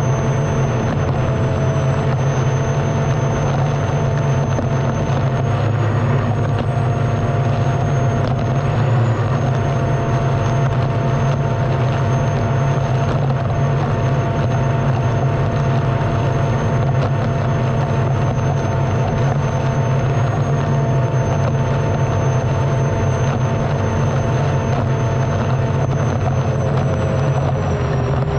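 Unlimited hydroplane's turbine engine running at racing power, heard onboard: a steady whine over a deep rumble. Its pitch wavers slightly a few times and begins to fall near the end.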